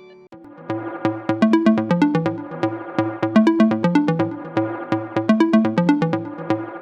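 Electronic background music: a synth line over a steady drum-machine beat, starting after a brief pause at the very beginning.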